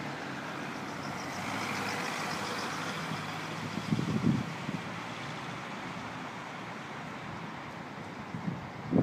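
Steady hum of city street traffic, with a short low thump about four seconds in.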